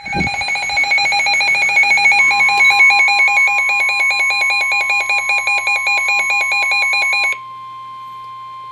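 NOAA weather radio receiver's built-in warning alarm: a loud, rapid electronic beeping that warbles between two pitches and cuts off suddenly about seven seconds in. From about two seconds in, the broadcast's steady weather alert tone sounds under it and carries on alone after the beeping stops, signalling an incoming warning.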